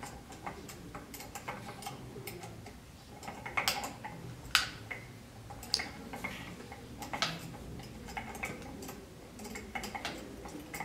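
Irregular light clicks and knocks of metal, plastic and glass parts of a rotary evaporator being handled and adjusted, with the sharpest click about halfway through.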